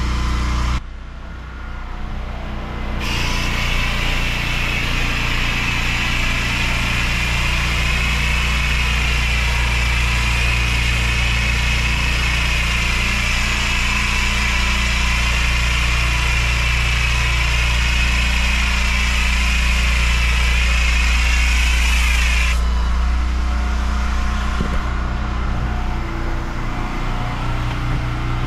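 Pressure washer engine running steadily while an X-Jet sprayer hisses out cleaning treatment. The spray starts about three seconds in and cuts off sharply near the end, leaving the engine running alone.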